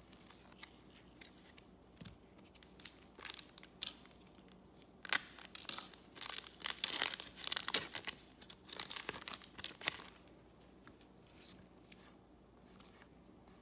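Trading card pack wrapper being torn open and crinkled, a cluster of crackling rustles in the middle with quieter handling before and after.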